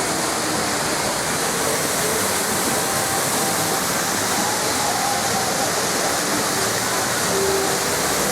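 Steady rush of water spray from a large show fountain.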